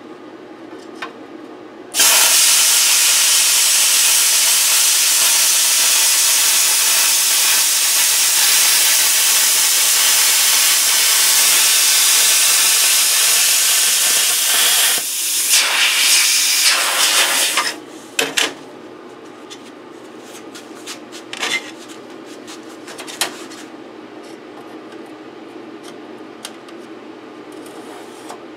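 Plasma cutter cutting sheet metal: a loud, steady hiss starts about two seconds in and runs for about fifteen seconds before it stops. After that, a much quieter hum with a few scattered clicks remains.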